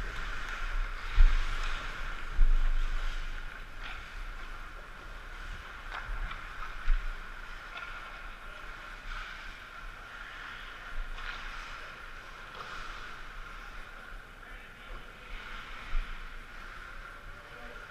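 Ice hockey rink sound heard through a helmet-mounted camera: a steady hiss of rink noise and skating, a few sharp clacks of stick on puck, and low thumps and rumble as the camera moves.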